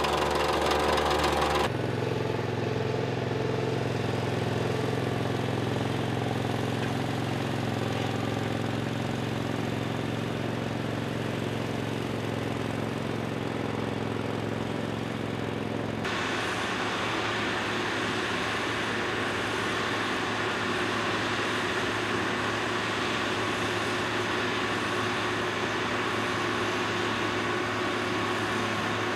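Asphalt paving machinery running, in three cut-together takes: a plate compactor's small engine for the first couple of seconds, then the steady engine hum of a small ride-on tandem roller, and from about halfway a heavier, harsher engine sound from an asphalt paver at work.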